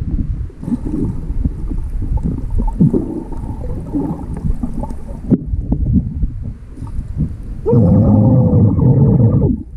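Muffled water sloshing and gurgling picked up by a GoPro in its waterproof housing, with irregular knocks. Near the end a louder, steadier muffled rush comes in and cuts off suddenly.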